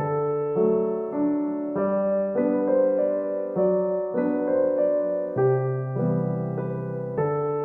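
Background piano music: gentle chords and melody notes changing about every half second.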